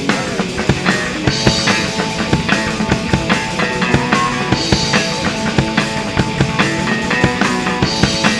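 Live rock band playing an instrumental passage between sung lines: electric guitars and bass over a steady drum-kit beat, with cymbal crashes every few seconds.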